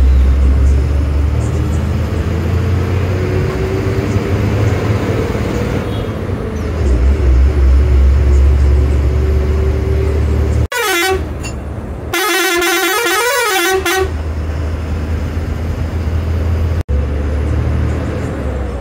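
Bus engine running with a low steady drone heard from inside the driver's cabin. About eleven seconds in the horn blows twice: a short blast, then a longer one of about two seconds made of several tones at once that waver.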